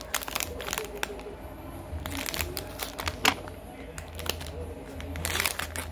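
Ice cream packaging crinkling and rustling as it is handled, a run of short crackles with one sharper snap about three seconds in.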